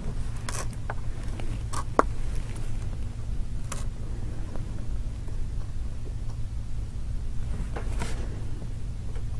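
Steady low hum with a few scattered light clicks and taps from small parts of a phone being handled during a screen repair.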